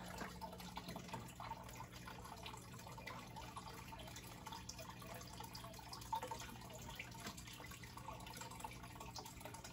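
Faint water trickling and dripping in a home aquarium, over a low steady hum, with one slightly louder splash or click about six seconds in.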